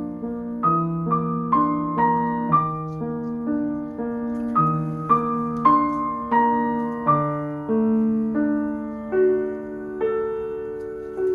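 Background music: gentle piano playing a melody, about two notes a second, each note struck and fading.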